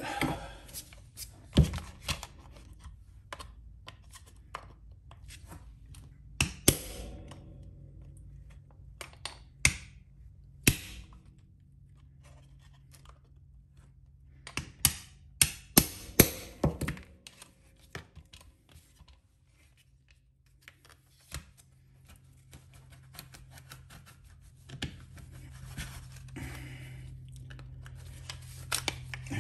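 A hammer striking a pin punch to drive the hinge pin out of a table saw's plastic paddle switch: sharp irregular metal taps, some ringing briefly, with a quick run of blows about halfway through.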